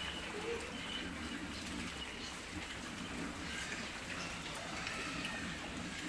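Pigs feeding on pellet feed scattered over a concrete pen floor, a steady din of eating, with short bird-like calls scattered through it.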